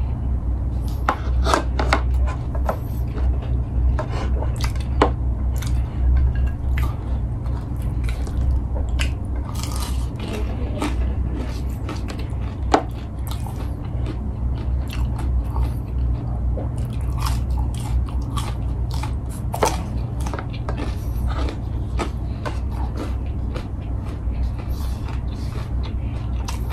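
Close-miked chewing and mouth sounds of a person eating rice and fried chicken with the fingers, with many small irregular clicks and crunches, over a steady low hum.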